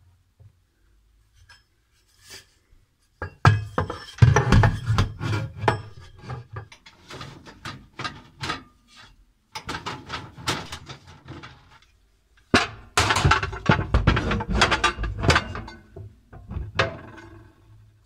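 Metal baking trays and glass baking dishes being set into a kitchen cabinet's wire shelf organiser: repeated clattering, knocking and clinking in several spells, the loudest about three seconds in and again past the middle.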